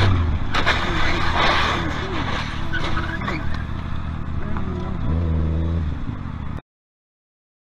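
Motorcycle engine running at freeway speed over heavy wind and road noise, with a sharp bang about half a second in from a car crashing ahead. The engine note swells again about five seconds in, then the sound cuts off abruptly.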